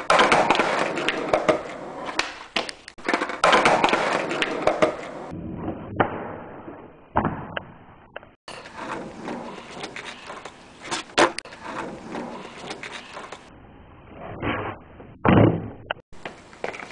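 Skateboard wheels rolling on concrete, with several sharp clacks of the board hitting the ground. The sound changes abruptly a few times where short clips are cut together.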